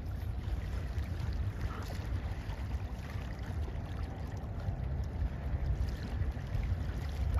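Low, steady rumble of a passing bulk carrier's engine carrying across the river, mixed with wind buffeting the microphone.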